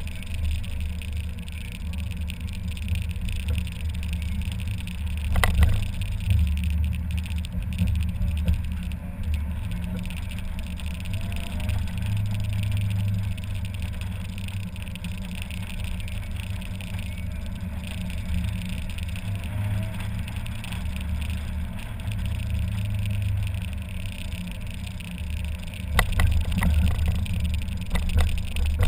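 Mazda Miata driving with the top down: a steady low rumble of wind, engine and tyres in the open cabin. A few sharp knocks break in, once early and several near the end.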